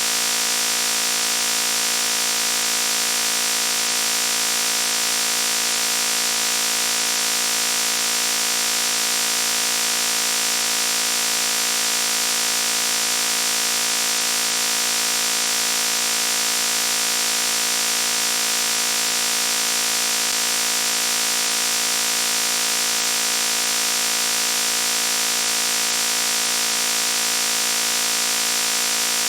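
A loud, harsh, steady buzz that never changes, with most of its energy high up.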